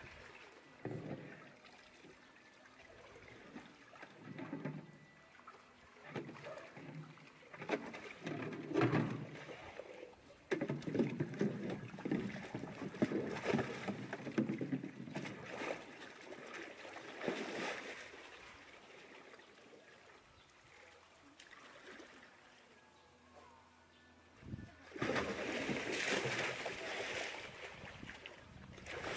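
Polar bear splashing in pool water while playing with a floating toy: irregular splashes and sloshing, quieter for a few seconds past the middle, then steady churning of the water near the end.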